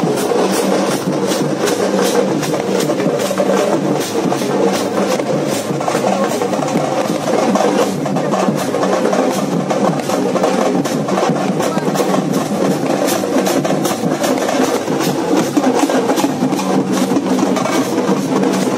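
Music with fast, steady drumming, the beats coming several times a second without a break.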